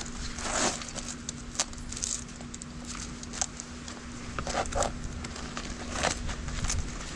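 Handling noise of wiring being worked into a zippered fabric frame bag on an e-bike: irregular clicks, taps and rustles, over a faint steady hum.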